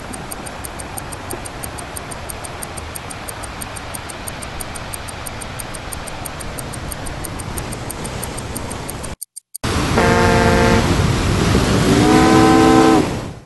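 Steady rushing noise with fast, regular ticking. After a brief break, two long blasts of a ship's steam whistle sound over a louder rush, the second starting with a slight upward slide.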